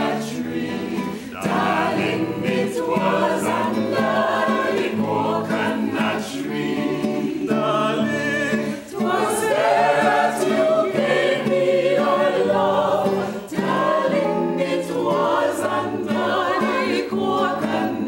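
Mixed choir of men and women singing together in harmony, with long held chords about halfway through.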